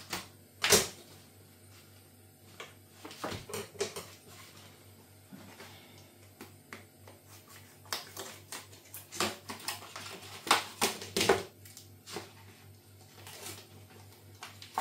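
Kitchen scissors snipping open a plastic meat packet, with the plastic crinkling and crackling as it is cut and pulled apart. A sharp crackle comes about a second in, and a busier run of crinkles and snips follows in the second half.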